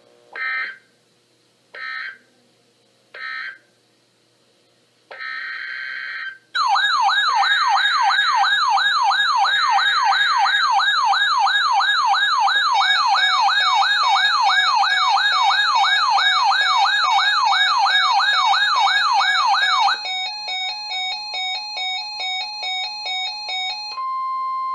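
Emergency Alert System alert: three short bursts of digital SAME header data tones, then a loud warbling siren-like alert tone sweeping up and down about three times a second. About 20 seconds in it changes to a pulsing pattern of beeping tones about twice a second, and ends with a brief steady tone.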